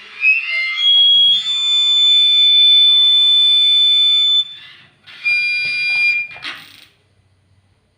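High-pitched electronic whistle from a DIY walkie-talkie circuit's speaker. A few quick rising chirps settle into a loud steady tone held for about three and a half seconds. After a short break a lower steady tone sounds for about a second.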